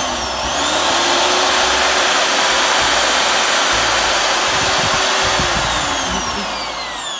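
Vitals ET 21050 corded electric drill running with no load, on a newly replaced trigger switch. Its motor whine rises to speed about half a second in, holds steady, then falls in pitch near the end as the motor slows.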